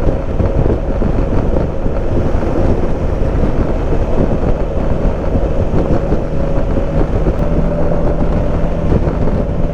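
Suzuki V-Strom's V-twin engine running at a steady cruising speed under wind and road rush on the microphone. The engine hum holds steady, shifting slightly higher in pitch about three-quarters of the way through.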